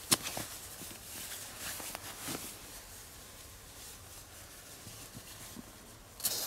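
Sleeping bag fabric rustling as a person shifts and settles inside it, in scattered soft bursts, with one sharp click just at the start and a brief burst of rustling near the end.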